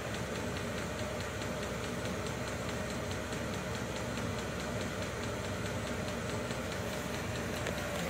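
Vevor 5 kW diesel air heater running steadily: a constant hum from its fan and burner, with a faint, fast, regular ticking over it.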